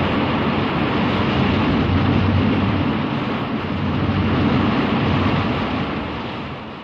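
Rodan sound effect from the Toho monster films: a steady rushing roar with no clear pitch and a heavy low rumble, fading out near the end.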